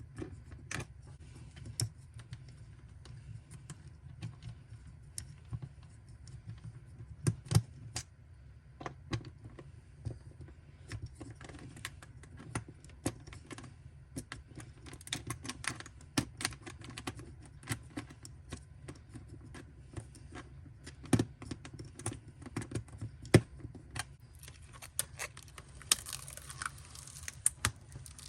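Hands handling packaging and frame pieces during an unboxing: irregular light clicks, taps and knocks over a low steady hum. Near the end, a stretch of rustling or tearing of packing material.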